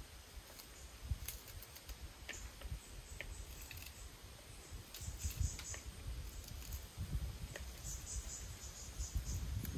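Crickets chirping in short high bursts, about five seconds in and again near eight seconds, over uneven low rumbling. Faint papery clicks of garlic skins being peeled by hand.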